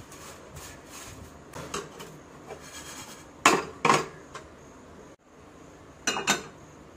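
A spatula stirring and scraping dry vermicelli in a nonstick pan, with two loud knocks against the pan a little past halfway. Near the end, two clanks as an empty kadai is handled on the stove.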